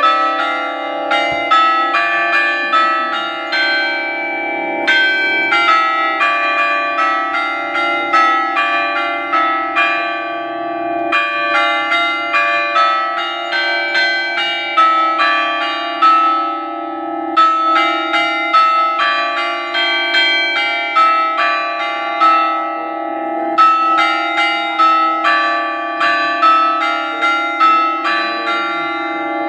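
Church bells ringing: several bells of different pitch struck one after another, about three strikes a second, over their lingering hum, in runs broken by short pauses every five or six seconds.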